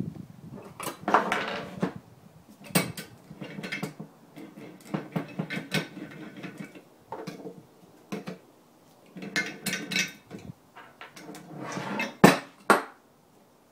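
Small metal bench vise being shifted and handled on a wooden tabletop: repeated clunks, clinks and rattles from the vise and its loose sliding handle. Near the end comes a sharp metallic clack as the handle is turned with a plastic part in the jaws.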